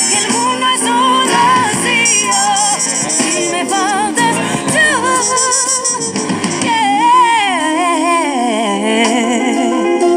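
Background music: a song with a singer's voice running up and down through long, wavering notes over a steady accompaniment.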